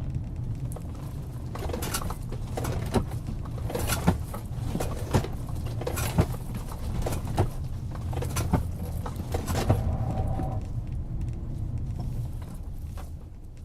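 Abnormal noise from a car during a right U-turn: sharp clicks or knocks about once a second, with fainter ones between, over a low steady hum, lasting about eight seconds before dying away.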